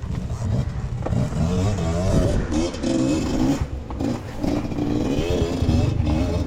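Off-road dirt bike engine running and revving unevenly, its pitch rising and falling over and over.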